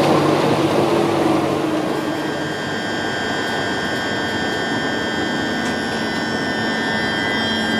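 Great Northern Class 387 electric multiple unit standing at the platform, its onboard equipment giving a steady hum with several high, steady whining tones. A louder rush of train noise fades away over the first two seconds or so.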